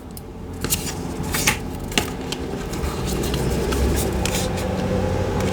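Tarot cards being handled: a series of short, irregular clicks and scrapes over a steady low hum.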